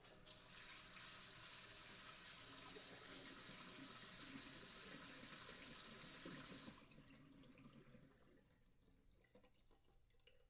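Water running steadily from a tap into a sink, stopping about seven seconds in and leaving faint trickles and drips.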